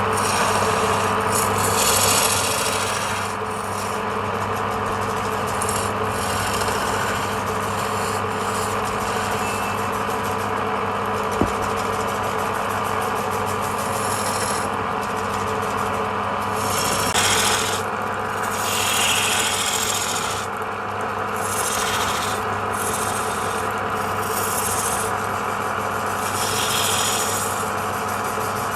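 Wood lathe running with a steady motor hum while a turning tool scrapes and cuts the spinning wood, the cutting noise swelling and fading with each pass. A single sharp click about a third of the way in.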